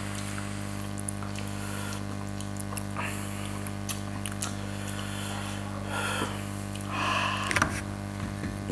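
Steady low electrical hum with faint scattered clicks, and brief voice sounds in the last few seconds.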